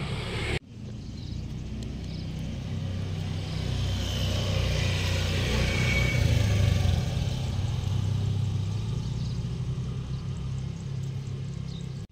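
A motorbike engine is cut off short by a sudden break about half a second in. Then a motor vehicle's low engine hum grows louder to a peak past the middle and fades again, as of a vehicle passing by.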